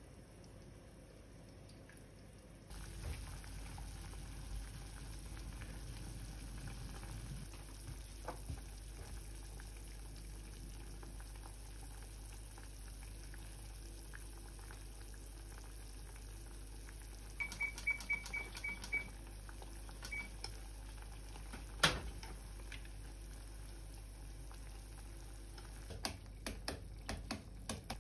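Pork braise simmering in a saucepan on a gas burner: a low, steady bubbling. Past the middle comes a quick run of small ticks, then a single sharp knock a little later, and more light clicks near the end.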